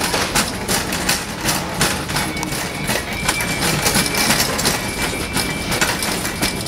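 Handling noise from a handheld camera carried by a walking child: a dense, roughly rhythmic rustling and knocking as the microphone rubs and jolts with his steps.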